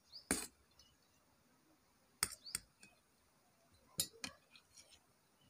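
Cutlery and dishes clinking: a handful of short, sharp clinks, one about half a second in, a pair around two seconds in and another pair around four seconds in.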